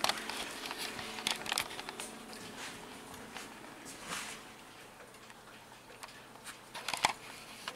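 A clock chime rings out and fades away in the first second or so, followed by scattered faint clicks and taps over quiet room tone.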